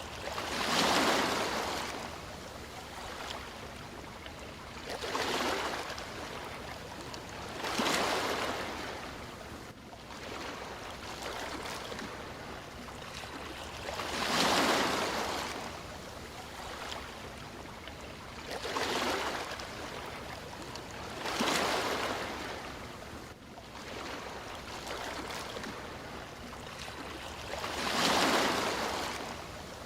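Sea waves breaking and washing in, one surge every few seconds, seven in all, over a steady background hiss of surf.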